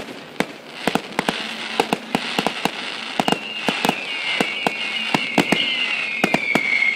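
Aerial fireworks going off: a run of sharp bangs and crackling pops over a hiss. From about three seconds in, a long whistle slowly falls in pitch.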